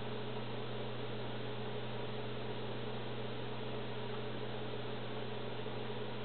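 Steady low electrical hum under an even hiss, unchanging throughout, with no distinct knocks or splashes.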